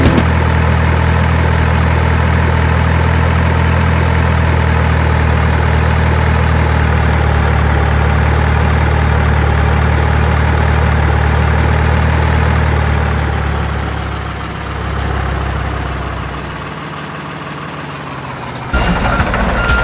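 A heavy truck engine idles with a steady low hum, easing off and fading down over the last several seconds. Near the end it cuts abruptly to music.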